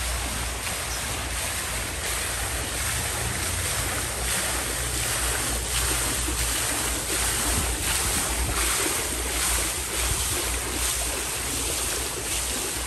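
Water spilling over the rims of a tiered stone fountain and splashing into its basin, a steady rush, with wind buffeting the microphone.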